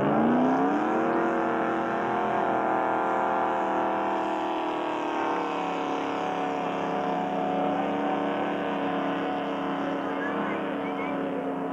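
Ski-racing powerboat engine revving up sharply, then holding a steady, loud drone whose pitch sinks slightly about halfway through.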